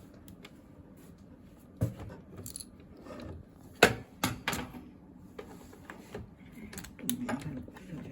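Small metal and plastic parts of a scanner being handled and fitted by hand: a scattered series of sharp clicks and clinks, the loudest about four seconds in.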